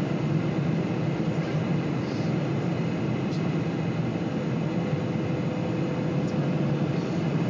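Steady cabin noise of a Boeing 747 in flight, the jet engines and rushing air heard from a window seat on the approach. A faint steady tone joins about halfway through.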